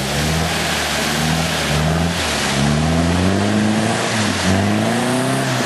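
Off-road 4x4's engine revving up and falling back about five times as the vehicle churns through a deep mud rut, over a steady rush of spraying mud and water.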